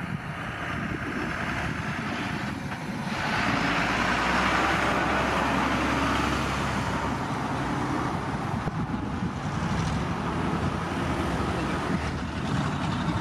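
Airbus A320neo's CFM LEAP-1A turbofan engines at takeoff thrust, a steady rushing roar from behind as the jet climbs away, growing louder about three seconds in.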